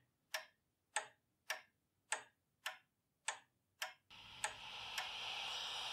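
Clock ticking steadily, a little under two ticks a second. About four seconds in, a hiss swells up behind the ticks.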